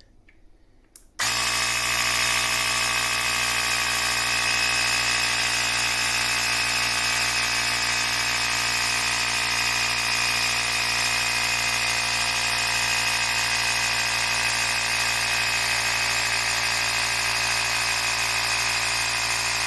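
A cordless portable tyre inflator (Yovikin, 150 PSI) switches on about a second in and runs steadily, its small electric compressor pumping air into a bicycle tyre.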